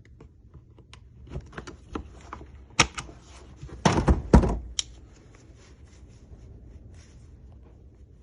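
Hard plastic clicks and knocks from handling a Milwaukee Packout box and its latch, with a cluster of loud knocks about four seconds in.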